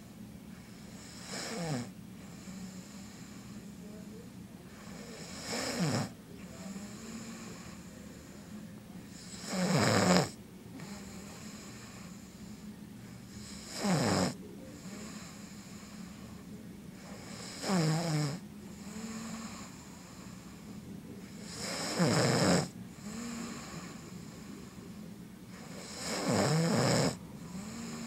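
A man snoring in his sleep: seven loud snores spaced about four seconds apart, each falling in pitch.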